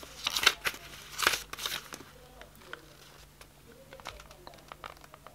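Paper pages of a small paperback book being leafed through: a few quick rustles and flicks in the first two seconds, then faint ticks as the pages settle.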